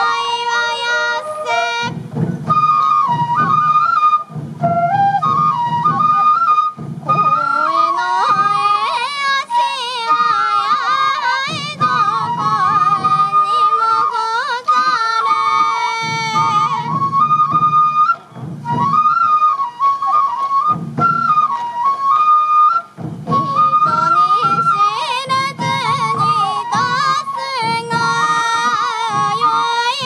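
Sansa odori festival music: a bamboo flute (fue) playing a steady melody over sansa taiko drums beaten in repeated runs, with voices calling out now and then.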